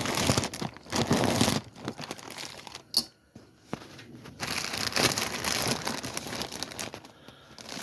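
Packaging being handled and torn open by hand: irregular crinkling and rustling in bursts, with a sharp click about three seconds in.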